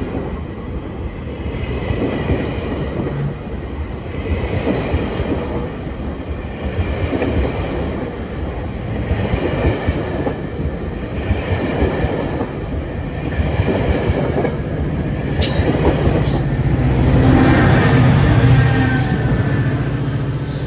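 GO Transit passenger train with bilevel coaches rolling into the station, wheels rumbling and squealing on the rails as it slows. Near the end a steady low diesel locomotive drone grows louder as the locomotive comes by.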